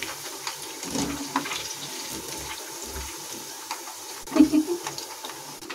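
Hot oil sizzling and bubbling around poha and potato cutlets deep-frying in a kadai, with a few clinks and knocks of a metal wire skimmer against the pan and a steel plate as fried cutlets are lifted out; the loudest knock comes about four and a half seconds in.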